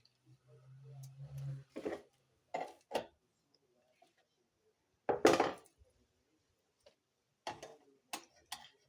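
A low hum building for about a second and a half and stopping, then a series of irregular clattering knocks of hard objects, the loudest about five seconds in.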